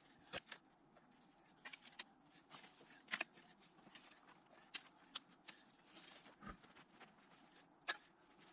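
Faint, scattered clicks and knocks of dry sticks being dropped and shifted on a pile of kindling in a steel fire ring.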